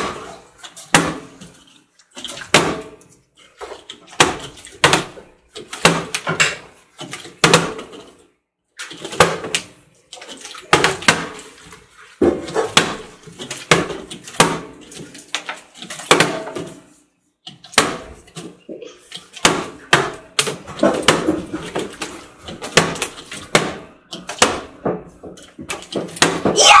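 Partly filled plastic water bottles flipped and landing again and again on a glass tabletop: a steady run of knocks, a little more than one a second, each with a short slosh of the water inside.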